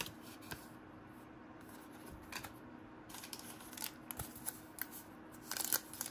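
Basketball trading cards being handled and flipped off a stack: scattered soft flicks and rustles, a few more close together near the end, over a faint steady hum.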